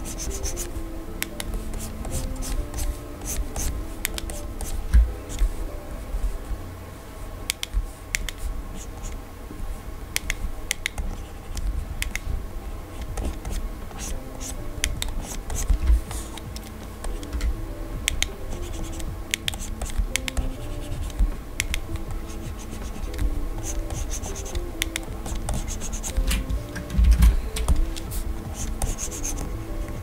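Stylus scratching and tapping on the screen of a Gaomon PD2200 pen display in many short strokes and clicks, with occasional dull knocks, over soft background music.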